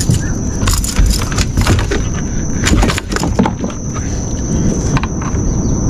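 Knocks and clicks of a freshly landed snapper flapping on a plastic kayak deck, with the metal of the popper lure's treble hooks rattling, over a low wind rumble on the microphone.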